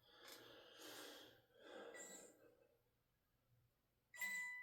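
Soft breathing in a quiet room for the first couple of seconds, then near silence; about four seconds in, a single ding that rings on and slowly fades.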